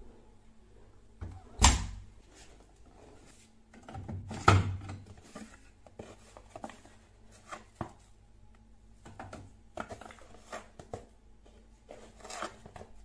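Household objects being handled: two louder knocks, about a second and a half and four and a half seconds in, then a run of light clicks and taps.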